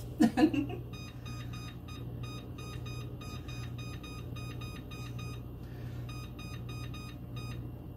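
Electronic beeping from an oven's control panel as it is set to preheat: a long, rapid run of identical short beeps at one pitch, with a brief break about halfway through, over a steady low hum.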